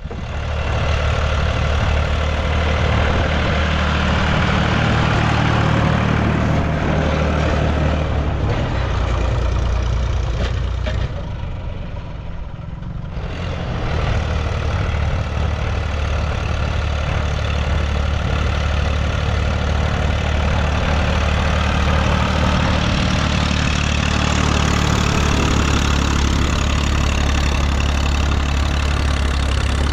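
Classic Massey Ferguson tractor engine running steadily. Its revs drop briefly about halfway through, then pick up again.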